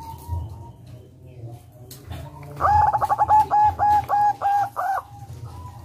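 Zebra dove (perkutut) cooing: a rapid rolling run of about nine short, evenly spaced coos lasting a little over two seconds, starting about two and a half seconds in.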